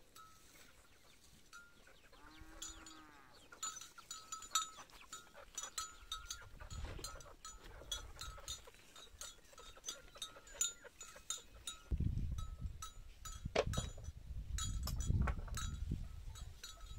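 A cow gives one short low moo about two seconds in, while a small bell rings on and off and scattered clicks and knocks come from things being handled at the cart. Low rumbling sets in from about twelve seconds.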